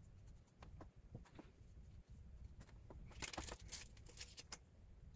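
Faint handling sounds from swabs and cleaning materials: a few soft ticks, then a quick cluster of crisp rustling clicks about three seconds in.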